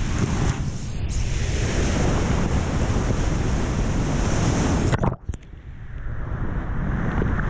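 Big whitewater rapid rushing and crashing around a kayak, heard from a camera on the boat, with water and wind buffeting the microphone. About five seconds in the sound dips sharply and then stays duller and muffled.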